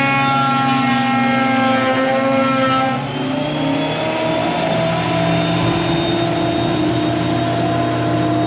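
King Canada benchtop thickness planer running, its motor and cutterhead giving a loud, steady whine while planing rough black ash. About three seconds in the pitch drops and the sound changes, then slowly climbs again.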